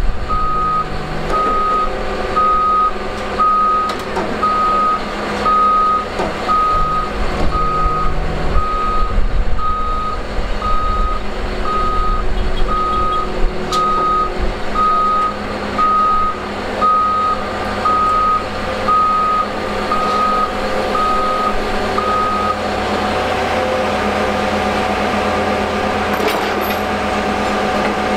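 Reversing alarm beeping about once a second and stopping about three-quarters of the way through, over the steady running of a heavy diesel engine, as the Cat D7 bulldozer is positioned on a lowboy trailer.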